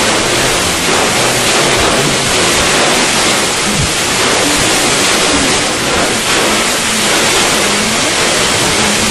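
Hurricane-force wind blasting across the microphone: a loud, steady rush of noise with no letup.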